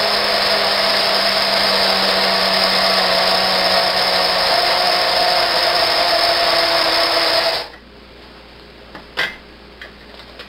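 Electric grinder motor running steadily while grinding oat groats on its medium setting, then cutting off abruptly about three quarters of the way through. A light knock follows.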